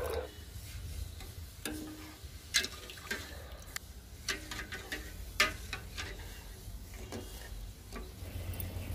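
Steel ladle stirring sugar and water in a stainless steel pot, clinking irregularly against the pot, about once or twice a second, over a steady low hum. It begins with the last of a cup of water pouring in.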